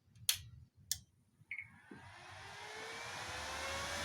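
Two sharp clicks, then a whirring that builds steadily from about two seconds in with a slowly rising whine: a welding inverter's cooling fan spinning up as the machine is switched on.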